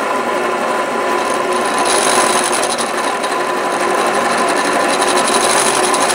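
Drill press spinning an end mill that is side-cutting aluminium held in a drill-press milling vise: a steady grinding with a constant whine. The vise is not bolted down, which the machinist says makes the cut less stable.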